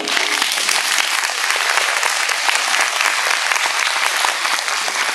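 Audience applauding, many hands clapping at once. The applause breaks out just as the music stops and keeps up steadily.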